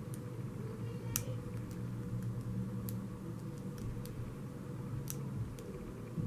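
Light, irregular metallic clicks of a pick working the pins inside a Master Lock No. 3 four-pin padlock, about one or two a second, over a steady low hum.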